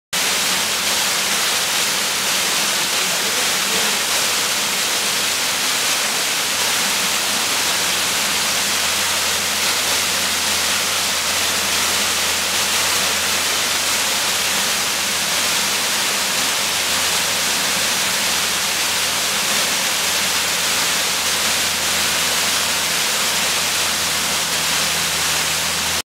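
Waterfall: water falling steadily over rock into a pool, a constant, even rush.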